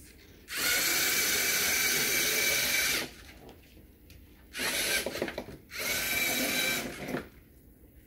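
LEGO Mindstorms NXT servo motors whirring as the robot car drives, in three runs: one of about two and a half seconds, then two shorter ones close together.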